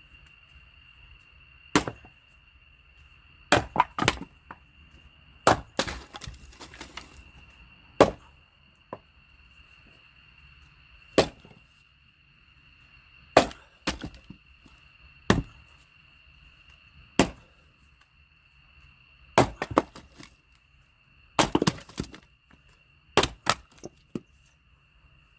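Firewood being split with an axe: sharp wooden chops and cracks every second or two, some coming in quick clusters of two or three. Insects drone steadily behind.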